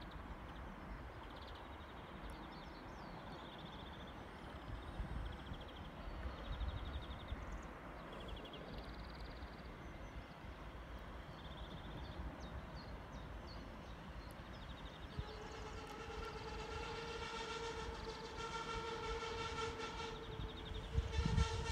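SA135 diesel railcar approaching and sounding its horn: one long, steady chord of several tones held for about six seconds, starting about two-thirds of the way in. Before it, only wind on the microphone and a few short bird chirps.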